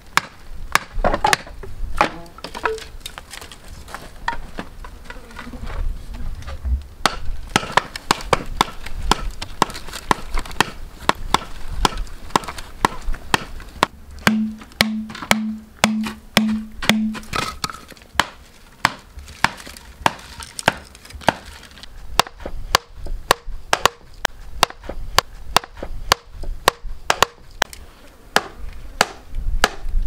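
Repeated knocks of a hand-held stone striking the top of an upright bamboo post, driving it into the ground, about one to two blows a second and quicker in the last third.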